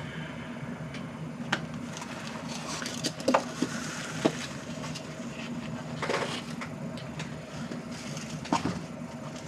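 Cardboard shipping box and plastic wrapping being handled: irregular rustling, scraping and light knocks as a guitar is pulled out of its box, with the loudest rustles about three, six and eight and a half seconds in.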